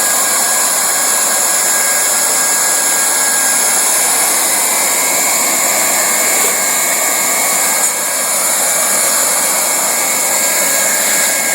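Hot-air welding gun for vinyl floor seams running steadily, a constant blowing noise.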